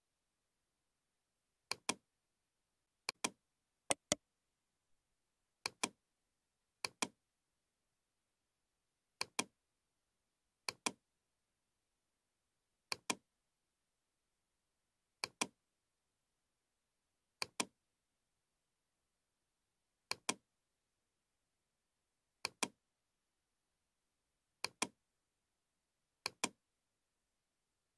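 Computer mouse clicks, each a quick pair of ticks from the button going down and coming up, about fourteen at uneven intervals of one to two seconds as edges are picked one after another.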